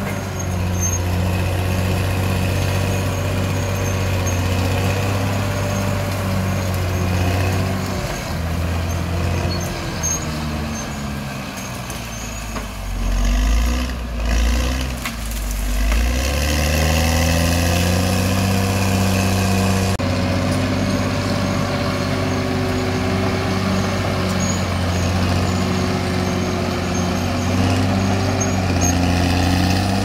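CAT D6R XL bulldozer's diesel engine running under work. Its pitch sags about a third of the way in, sits low with two louder surges for a few seconds, then climbs back to a steady speed.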